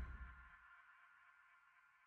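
The tail of the outro music and logo sound fading out in the first half second, then near silence.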